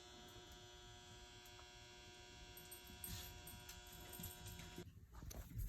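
Near silence with a faint steady electrical hum made of several steady tones, which cuts off abruptly near the end.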